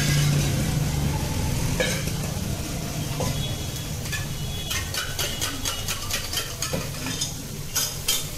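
Chopped onions, tomatoes and curry leaves sizzling on a hot flat iron griddle (tawa), over a steady low hum. In the second half comes a quick run of sharp metal clicks, typical of a steel spatula striking and scraping the griddle.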